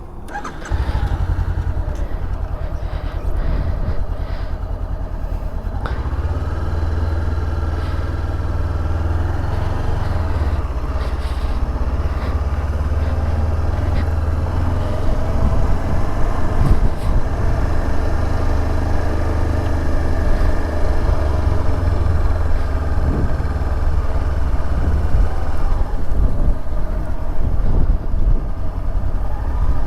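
Honda CB500F's parallel-twin engine running as the motorcycle rides along, heard on board. It gets louder about a second in, then holds steady with a heavy low rumble, its pitch drifting gently with speed.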